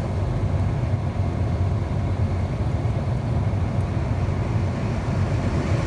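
Holden VY Commodore idling at about 750 rpm, heard from inside the cabin: a steady low engine hum, with the ventilation fan blowing air through the vents.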